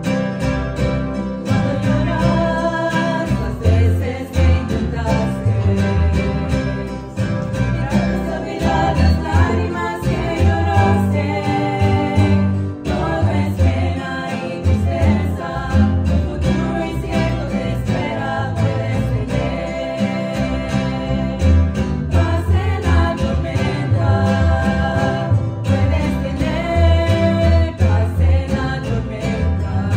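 A group of women singing a gospel hymn together, accompanied by a strummed acoustic guitar and a plucked upright double bass.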